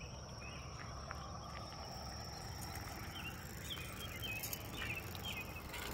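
Outdoor ambience: scattered short bird chirps and a steady high insect buzz over a constant low rumble.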